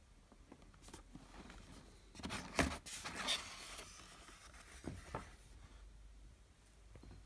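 Cardboard shoebox lid being opened and the tissue paper inside rustling, loudest from about two to three and a half seconds in, followed by two short knocks about five seconds in.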